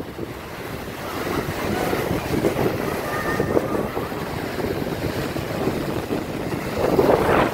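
Surf breaking on a sandy beach, with wind rumbling on the phone's microphone; louder near the end.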